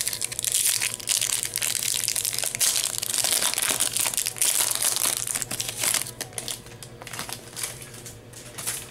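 Foil wrapper of a Yu-Gi-Oh Cosmo Blazer booster pack crinkling as it is handled and torn open. The dense crackle lasts about six seconds, then thins to sparser rustles.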